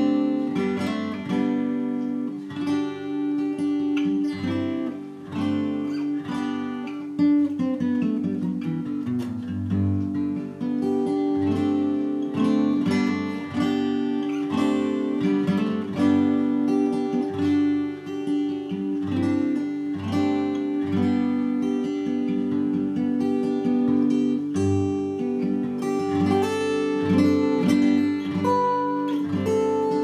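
Solo steel-string Collings acoustic guitar fingerpicked in open D tuning (D A D F# A D), capoed at the fifth fret so it sounds in G, with low drone strings ringing under the picked melody. A run of notes steps down in pitch about eight seconds in.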